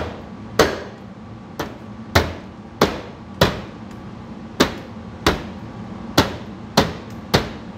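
A fist pounding down on the top of a 2017 Jeep Renegade's lift gate spoiler, about eleven sharp thumps, mostly half a second or so apart, to push the new third brake light's clips home into their holes.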